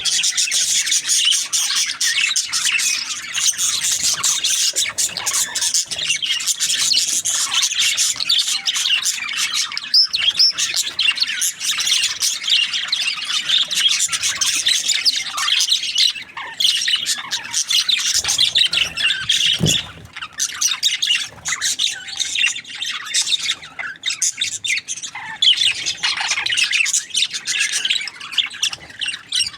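Budgerigars chattering and chirping: many quick, high, overlapping calls at once, dense for about twenty seconds, then more broken up with short gaps.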